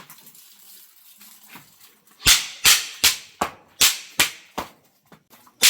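Small firecrackers going off in a quick run of sharp cracks, about eight of them roughly 0.4 s apart, starting about two seconds in.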